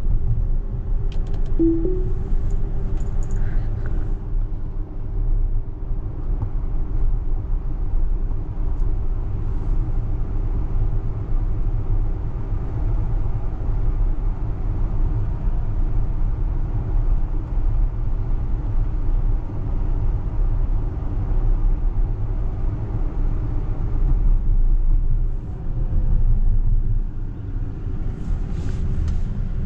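Steady low road and tyre rumble inside the cabin of an electric Tesla Model X 100D driving at city speed. A few faint clicks come near the start and again near the end.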